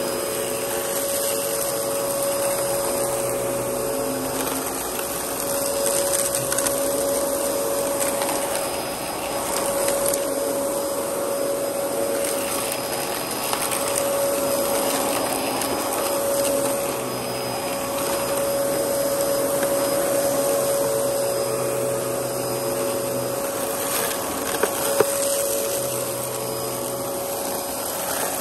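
Dyson DC14 upright vacuum cleaner running steadily with a high motor whine, its level swelling and easing gently as it is worked over the carpet. Two sharp clicks come a few seconds before the end.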